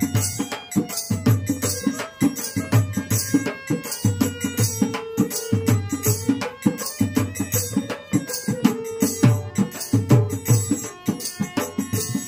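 Instrumental passage of Bengali Baul folk music: a harmonium holds a slow melody over a steady, repeating rhythm of dhol barrel-drum strokes. Small hand cymbals clash in time with the drum.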